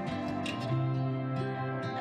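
Slow instrumental background music, with held low notes and a few separate picked notes over them.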